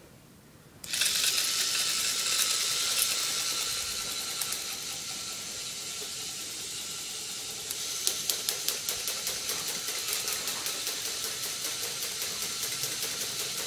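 K'nex coaster's electric motor driving the chain lift, switching on suddenly about a second in: a steady whir and chain rattle. From about eight seconds in, rapid, evenly spaced clicking joins it.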